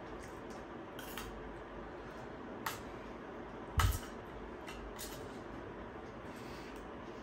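Spoons clinking and scraping against a steel thali and a foil food container during eating: a few scattered sharp clinks, with a louder, duller knock about four seconds in.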